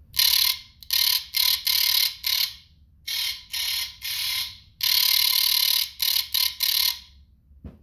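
A handheld simulated-shocker prop plays its electric zapping sound effect from its built-in speaker in about a dozen short bursts, each lasting as long as its button is held down. One longer burst comes about five seconds in.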